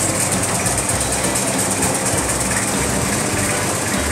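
Boat engine running steadily on the canal, with a constant hiss over a low hum.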